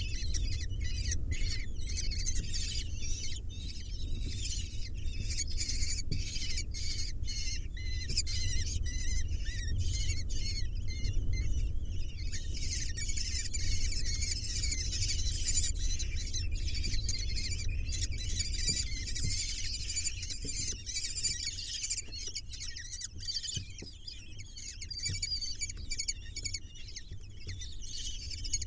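A brood of kestrel nestlings giving shrill, rapidly repeated begging calls as they are fed, many calls overlapping, over a steady low rumble.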